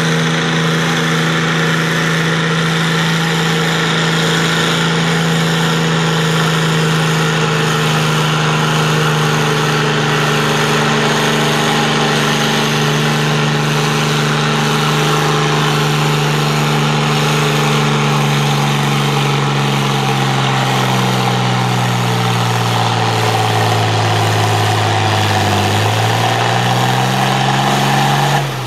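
International Harvester 766 tractor's naturally aspirated diesel engine running at full throttle while pulling the sled, a loud steady drone. Over the last several seconds its pitch sags as the engine lugs down under the building sled load, then picks up again briefly just before the sound drops off at the end of the pull.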